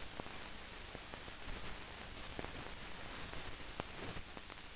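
Faint steady hiss of a 16mm film soundtrack with no sound on it, dotted with irregular small clicks and pops.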